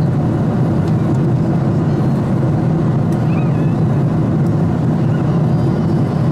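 Boeing 777-200 cabin noise in flight: a steady, low rumble of the engines and rushing airflow, heard from a seat by the window.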